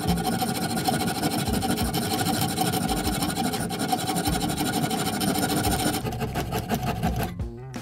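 Saw cutting through a walnut handle blank, a steady continuous sawing noise whose high part thins out about six seconds in.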